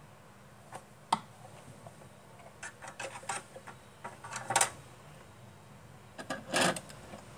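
Handling noise: a sharp click about a second in, then short bursts of rubbing and scraping, the loudest around the middle and near the end.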